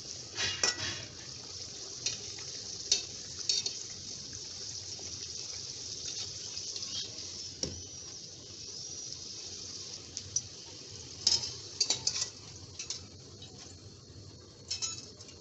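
An atta kachori frying in hot oil in a kadai: a steady sizzle, with scattered clicks of a utensil against the pan.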